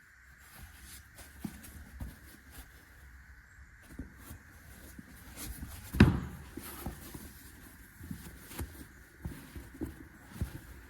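Irregular soft knocks and clicks, with one louder thump about six seconds in, over a faint steady high hiss.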